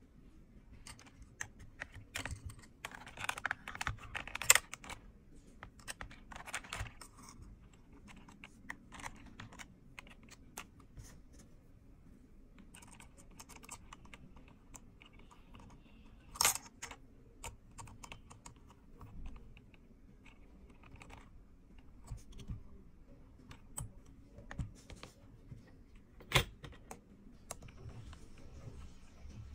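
Irregular clicks and taps from keyboard keys and the small metal parts of an auto-clicker's steel pressing arm, handled and adjusted with a hex key. The clicks are busiest at the start and sparser later, with three sharper, louder clicks spread through.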